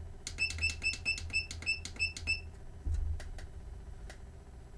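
Yihua 948 desoldering station's control-panel button beeping in a quick run of about a dozen short, high beeps over two seconds as the temperature setting is stepped up to 360, followed by a few fainter clicks.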